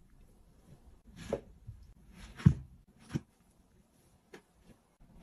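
Dog moving about in a padded pet bed: a few short, soft thumps and scuffs, the loudest about two and a half seconds in, then a couple of faint ticks.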